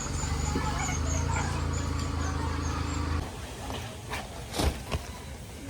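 A steady low motor hum that cuts off suddenly about three seconds in, followed by a few short knocks, the loudest near the end.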